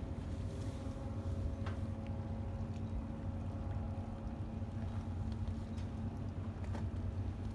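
Lake freighters' engines droning across the harbour water: a steady low rumble with a faint even hum above it.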